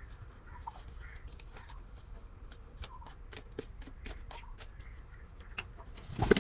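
Pigeons in their new enclosure, heard faintly as scattered little taps and clicks with a few short bird calls, over a low rumble. A louder knock comes just before the end.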